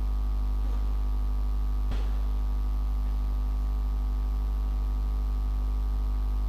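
Steady electrical mains hum and buzz, with a faint click about two seconds in.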